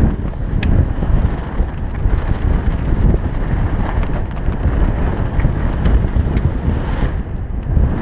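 Wind buffeting a helmet-mounted GoPro's microphone as a downhill mountain bike runs fast over a dry dirt trail, a steady low rumble of wind and tyres, with scattered sharp clicks and rattles.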